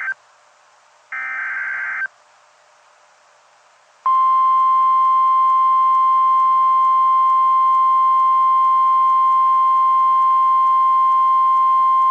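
NOAA Weather Radio Emergency Alert System activation. The last of the SAME header's digital data squawks plays about a second in and lasts about a second. After a short pause, the steady single-pitch 1050 Hz Warning Alarm Tone sounds from about four seconds in and holds, marking the start of a new warning broadcast.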